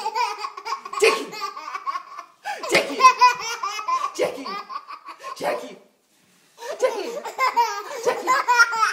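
A baby laughing in repeated bursts, breaking off for a moment about six seconds in.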